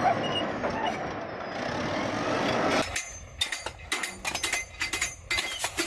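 Heavy vehicle running with a steady rumble, then, about three seconds in, a run of sharp irregular metallic knocks and clanks.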